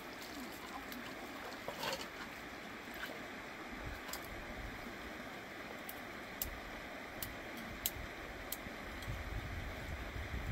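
Shallow stream running steadily over rocks, with water pouring out of a lifted basket right at the start. Wind rumbles on the microphone a few times, and a handful of sharp clicks stand out now and then.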